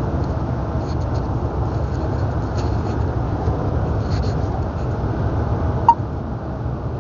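Steady low rumble of a truck cab on the move, engine and road noise, with a brief sharp tick about six seconds in.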